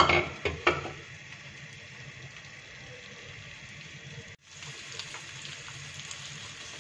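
Cut okra sizzling steadily in hot oil in a nonstick wok, with a few sharp knocks in the first second. The sizzle breaks off for an instant about four seconds in, then carries on.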